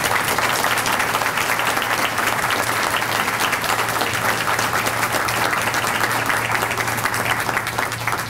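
Audience applause: many people clapping steadily, tailing off at the end.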